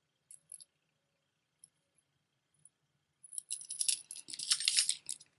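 Jewelry clinking and rattling as pieces are handled: a few light clicks, then from about three seconds in roughly two seconds of dense jangling.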